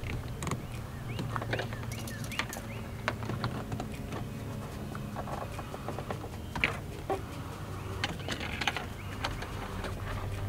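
Irregular small clicks, taps and scrapes of a cable and wire-fishing tool being worked through a plastic wiring channel in a car's liftgate, over a steady low hum.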